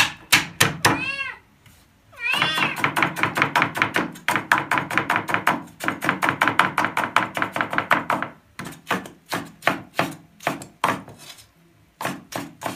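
A cat meowing insistently over a cleaver chopping rapidly on a wooden cutting board to mince garlic. There is a short meow about a second in, then a long drawn-out meowing from about two seconds to eight; the quick knife strikes carry on, sparser near the end.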